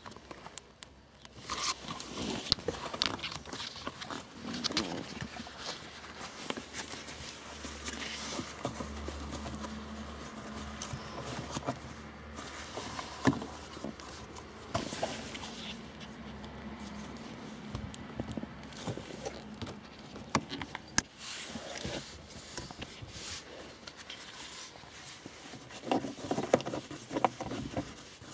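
Hands working a leather gear gaiter down over the gear lever and pressing it into an Opel Corsa C's plastic centre console. Leather and plastic rustle and scrape, with scattered sharp clicks and taps.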